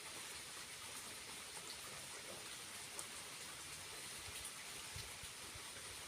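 Faint, steady hiss of water falling and running at a small waterfall.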